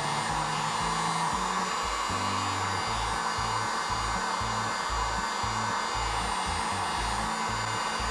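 Electric hot-air blower running steadily, heating a freshly applied vinyl decal so it lays down smoothly.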